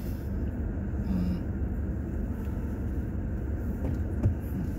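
Steady low rumble of a car heard from inside its cabin, with one short knock about four seconds in.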